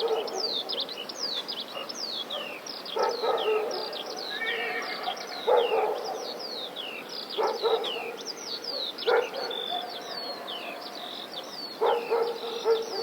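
A dog barking a few times, a short bark every couple of seconds, over many small birds chirping continuously with quick falling chirps.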